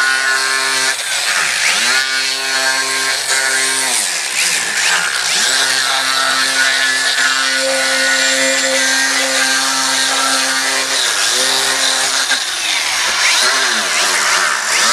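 Handheld power carving tool running at high speed against wood, with a buzzing hiss over the motor tone. Three times it slows sharply and speeds back up, about a second in, near five seconds and near twelve seconds.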